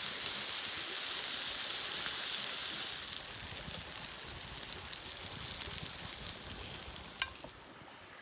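Food sizzling as it fries in a pan, with fine crackles through the hiss. It is loud for about three seconds, then quieter, with one sharp click about seven seconds in, and it fades away near the end.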